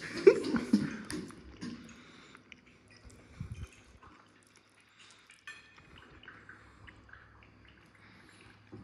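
A metal fork tapping and scraping on a ceramic plate as it picks at fish, with a few sharp clicks and soft squishy taps. The clicks are busiest in the first second or two, then thin out to scattered faint ticks.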